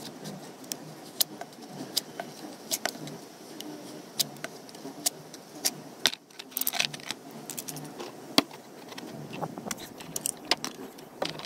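Irregular sharp clicks and scrapes of hard plastic being handled. A knife trims the rim of a plastic bucket lid, then the lid and a plastic water bottle are set down on concrete.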